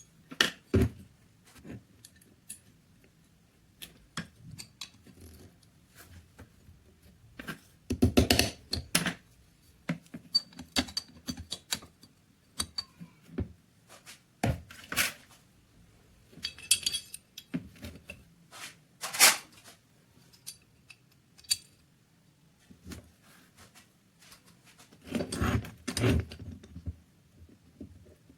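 Small metal parts and tools being handled: irregular clicks, clinks and knocks, with louder clattering about eight seconds in and again near the end.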